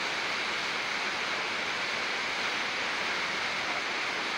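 Steady rush of a creek running high through the canyon below, an even waterfall-like hiss.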